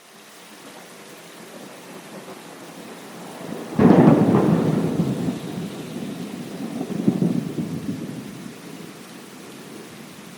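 Thunderstorm: steady rain with a sudden loud thunderclap about four seconds in that rolls on as rumbling thunder, swelling again around seven seconds before fading back into the rain.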